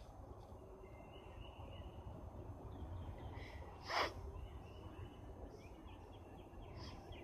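Quiet room with faint birds chirping and trilling in the background over a low hum, broken about four seconds in by one short nasal breath from a woman with a runny nose between sneezing fits.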